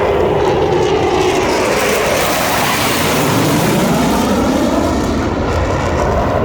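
Military display aircraft flying past low and loud, a steady engine noise whose pitch sweeps down, swells, and sweeps down again as it passes.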